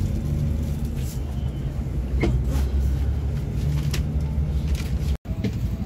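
Scania K360iB coach on the move: a steady low engine and road rumble with a few light clicks and knocks. The sound cuts out for an instant a little after five seconds.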